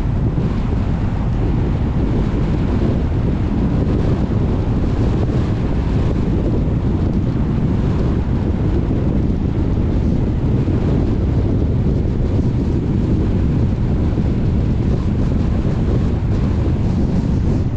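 Steady road and wind noise of a moving car: a dense, unbroken low rumble that holds at one level.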